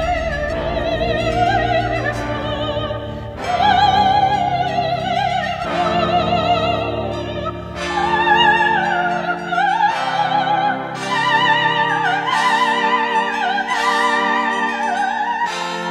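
Operatic singing in a high voice with wide vibrato, in phrases of a few seconds, over sustained low accompanying chords from an electronic opera score that shift every two or three seconds.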